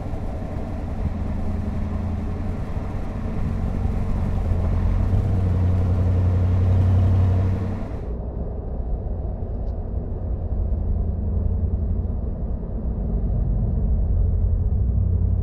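A GM 5.3-litre V8 through an MBRP Armor BLK 3-inch dual middle side-exit cat-back exhaust, heard at the tailpipes while driving: a steady low exhaust note under wind and road noise, growing a little louder over several seconds. About eight seconds in it switches to the sound inside the cab at highway cruise around 1,200 rpm: a steady low, muffled exhaust note with the wind and road hiss gone.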